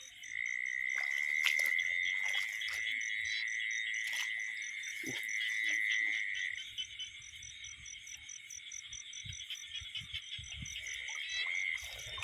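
Chorus of frogs and insects calling: a steady high trill runs for about six seconds, stops, and starts again near the end, over a fast, even chirping.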